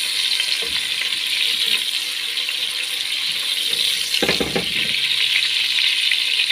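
Sliced onions sizzling steadily in hot oil in a non-stick pot as they are stirred with a silicone spatula, with a short louder noise about four seconds in.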